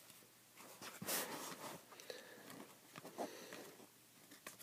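Foil trading-card pack wrapper rustling as a stack of cards is slid out of it, with a louder rustle about a second in and a few light taps of the cards later.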